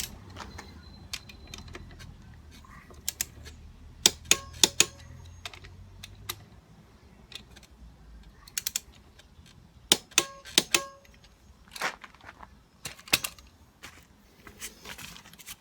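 Click-type torque wrench and hand tools working the front brake caliper mounting bolts of a BMW S1000R: sharp metallic clicks and clinks come in a few short clusters as the bolts are tightened to torque.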